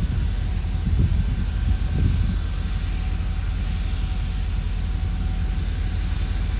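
Steam locomotive WMSR 1309, a Baldwin 2-6-6-2 Mallet, moving slowly in reverse: a steady low rumble with uneven low pulses.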